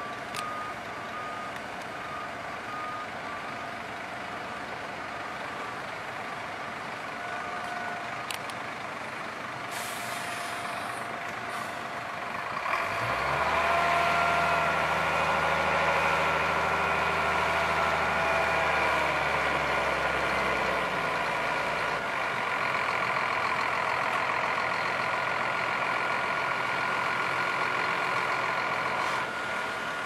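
Dump truck's reversing beeper sounding briefly at the start, a short hiss of air about ten seconds in, then from about thirteen seconds the truck's engine speeds up and holds a steady raised note as it drives the hydraulics that lift the tipper body to unload asphalt into a paver. Steady machinery noise runs underneath throughout.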